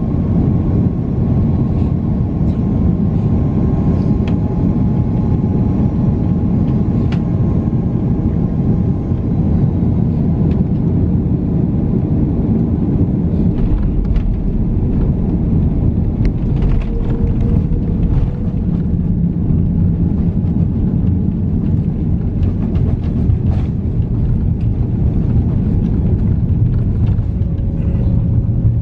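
Steady rumble of engine and airflow noise inside an airliner's cabin during final approach and landing, deepening about halfway through as the plane touches down and rolls along the runway, with a few light clicks and rattles.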